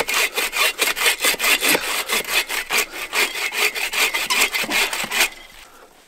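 Agawa Canyon Boreal21 folding bow saw cutting through a knot in a dry, dead log: fast, even back-and-forth strokes that stop about five seconds in.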